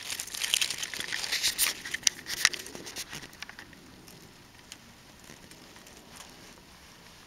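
Dry fallen leaves rustling and crackling, with a cluster of sharp crunches in the first three seconds, then dying down to a faint rustle with an occasional click.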